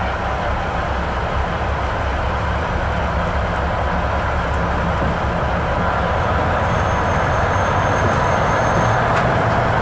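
Loaded railroad flatcar rolling slowly past: steady rumble of steel wheels on the rails. A faint thin high whine comes in about seven seconds in, and a few sharp clicks sound near the end.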